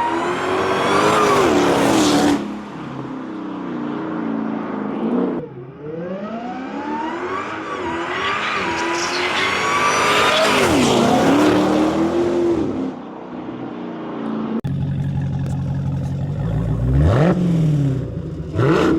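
Supercharged 6.2-litre V8 of a Dodge Challenger SRT Hellcat revved several times, with a high supercharger whine rising and falling with the revs. After a sudden change about two-thirds of the way in, the engine settles lower and is blipped twice quickly near the end.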